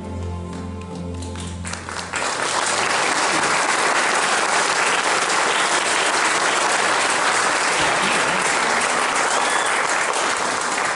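The song's last chord dies away, then an audience breaks into steady applause about two seconds in.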